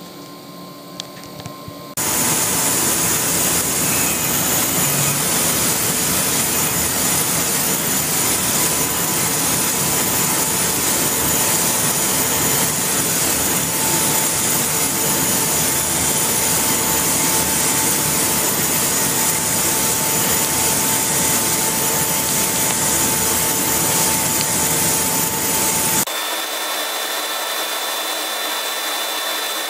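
Triumph TR1390 CO2 laser engraver at work: a steady rushing air noise from its exhaust and air-assist blowers, with a faint steady whine, coming on about two seconds in. Near the end the low rumble drops out while the rushing goes on.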